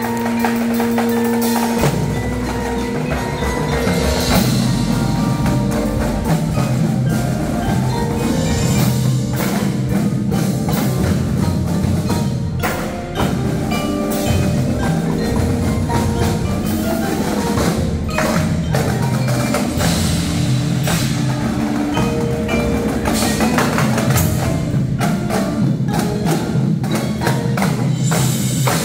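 Indoor percussion ensemble playing: mallet keyboards (marimbas and vibraphone) with drum kit, marching snare and bass drums, and cymbals. A few held tones open it, then dense rhythmic playing from about two seconds in.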